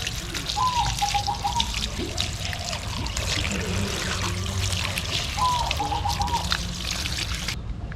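Water trickling and pouring with small splashes. Two brief high chirps sound, about half a second in and again about five and a half seconds in.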